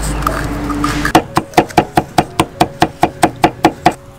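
Steel cleaver chopping garlic on a thick wooden chopping block. Quick, even strikes come about five a second, starting about a second in and stopping near the end.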